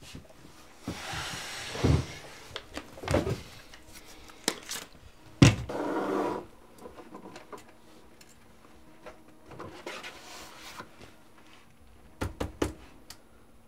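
Small objects being handled and set down on a desk: scattered knocks and clicks, a rustling swish about a second in, and a louder knock about halfway through followed by a short rustle. A faint steady hum sits underneath in the second half, and there is a quick run of clicks near the end.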